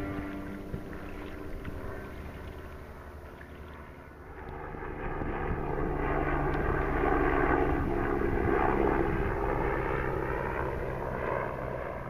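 A steady engine drone passing by: it swells about four seconds in, is loudest around eight seconds, then slowly fades.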